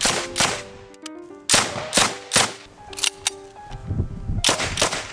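PM-63 RAK submachine gun firing 9mm Makarov rounds: about nine sharp shots in uneven groups, mostly a third to half a second apart, over background music.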